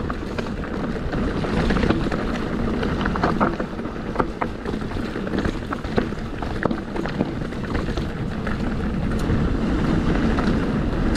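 Mountain bike rolling fast down a rocky dirt trail, its tyres crunching over gravel and stones, with scattered sharp clicks and knocks from the bike over the rough ground. Wind buffets the microphone throughout.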